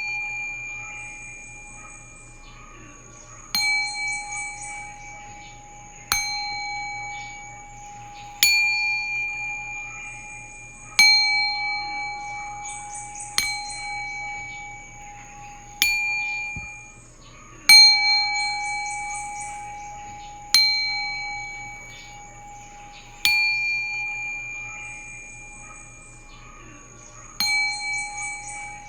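A singing bowl struck about every two and a half seconds, about ten times. Each strike rings on in several steady overtones and fades slowly under the next.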